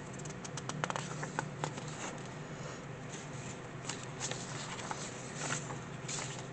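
Sheets of paper being handled and flipped, a soft rustle with scattered light clicks and ticks.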